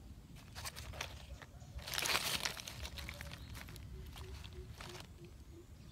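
Dry leaf litter crackling and rustling as a hand picks among the leaves, in scattered bursts with the loudest crunch about two seconds in.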